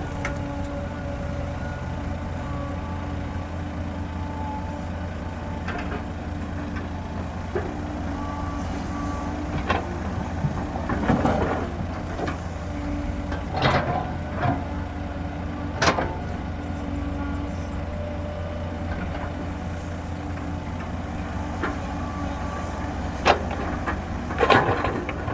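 Heavy diesel engine running steadily at a low rumble, with several sharp knocks or clanks over it.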